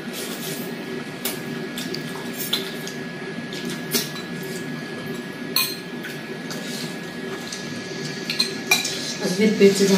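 Chopsticks and forks clicking and clinking against ceramic noodle bowls while eating, as scattered single clicks a second or so apart, over a steady low hum.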